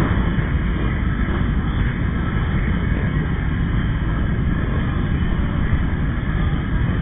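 Many motorcycle engines idling together in a crowded group, a steady dense rumble with no single engine standing out.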